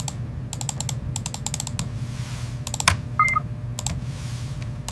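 Quick clusters of light, sharp clicks, like typing, over a steady low hum, with a short electronic beep about three seconds in.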